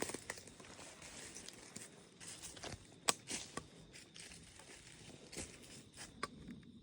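Footsteps crunching and rustling through dry leaves and brush on the woodland floor, in an irregular run of crackles with a sharper crack about three seconds in.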